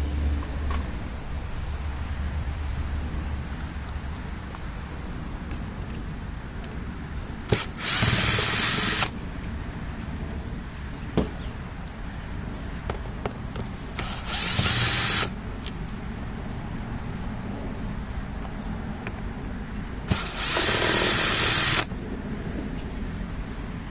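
Power drill running in three short bursts of about a second each, backing screws out of a handheld leaf blower's housing. Light clicks come between the bursts.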